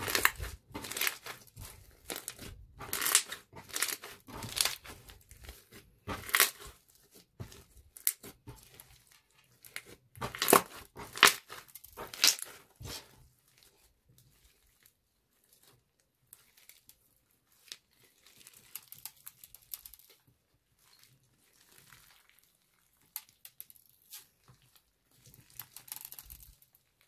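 Hands kneading, squeezing and stretching a thick, glossy black slime mixed with small beads, giving sticky crackling and popping as it folds and pulls apart. The crackling is loudest and densest over the first half and turns softer and sparser after that.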